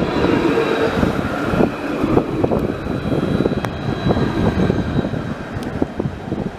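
Alstom Citadis 302 electric tram passing close by: the traction motors give a steady high whine that fades out near the end, over a rumble of wheels on rails with irregular knocks.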